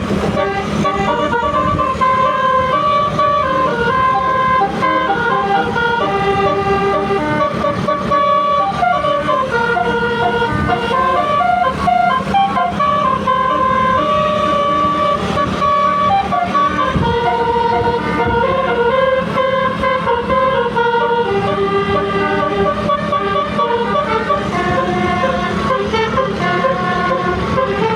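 Basuri 'telolet' musical bus horn playing a melody, its tones stepping up and down in pitch without a break, over a steady low hum.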